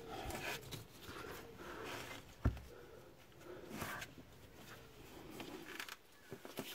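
Socket wrench and extension bar clicking and scraping against metal while undoing an exhaust manifold bolt, with one sharp knock about two and a half seconds in.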